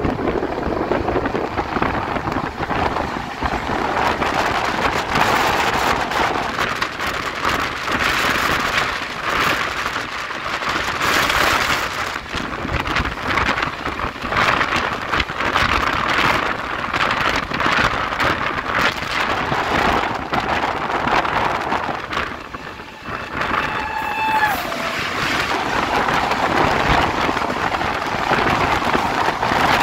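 Running noise of an Indian Railways express train heard from its open coach door: a steady rush of wind on the microphone with wheels clattering irregularly over the track. About two-thirds of the way through, a train horn sounds once, briefly, its pitch dropping slightly at the end.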